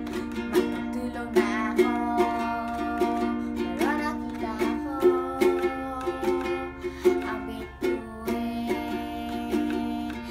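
Ukulele strummed in a steady rhythm, with a girl's voice singing long, wavering notes over it.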